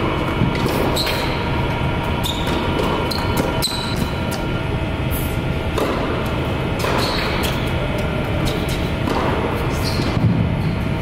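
Tennis balls struck by rackets in a baseline rally: sharp pops every second or two, ringing in a large indoor hall, over a steady low background hum.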